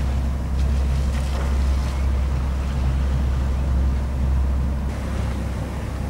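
Sailing yacht under way at sea: a steady low rumble with wind and water noise over it.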